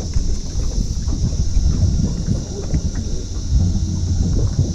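Wind buffeting the microphone: a loud, irregular low rumble.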